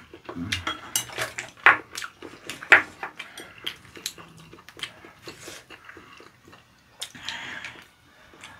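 Eating sounds: chopsticks clicking against dishes and foam trays, mixed with chewing of raw squid sashimi. The clicks come thick and sharp for the first three seconds, then thin out.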